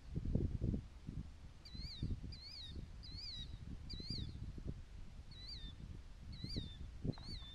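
A bird calling: a short, high note that rises then falls, repeated over and over from about two seconds in. Under it are low rumbles and thuds on the microphone, loudest near the start.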